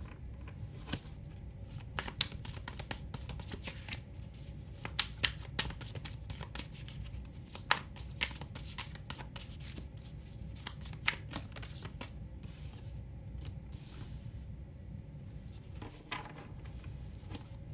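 A deck of tarot cards being shuffled by hand: many quick snaps and flicks of the cards, with a longer rustle about twelve to fourteen seconds in.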